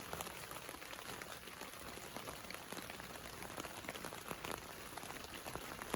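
Light rain falling, a faint steady hiss dotted with irregular ticks of individual drops.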